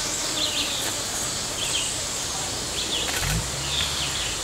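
Tropical forest ambience: a steady high insect drone with short bird chirps recurring about once a second.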